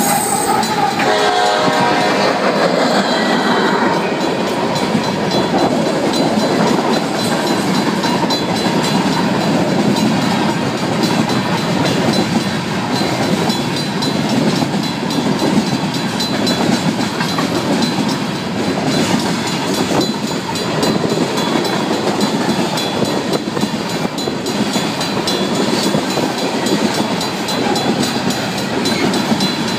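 Union Pacific mixed freight train rolling fast through a grade crossing: steady rumble and clatter of freight-car wheels on the rails, with the crossing's Safetran mechanical bell ringing. The locomotive horn trails off in the first couple of seconds.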